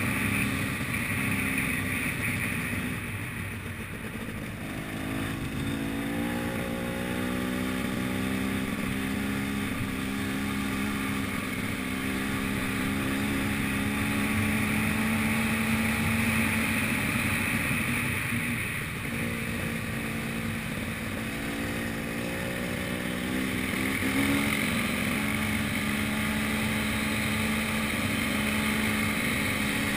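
Enduro motorcycle engine running under way, heard up close from the bike. The note dips and climbs again a few times as the throttle is eased and reopened.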